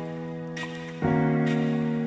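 Background music: soft sustained chords, with a new chord striking about a second in.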